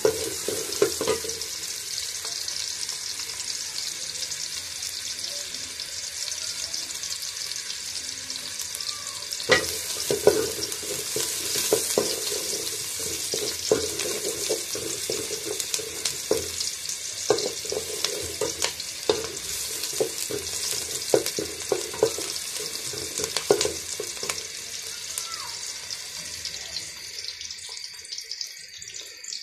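Sliced onions sizzling in hot oil in an aluminium pot, being fried until lightly browned, with a wooden spatula scraping and knocking against the pot as they are stirred. The sizzle dies down near the end.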